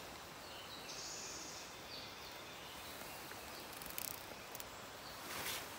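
Quiet forest ambience: a faint high-pitched sound lasting about a second shortly after the start, and a few faint rustles or ticks near the end.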